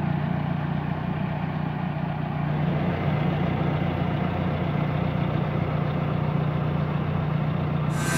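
Farm tractor engine running steadily, a constant low drone.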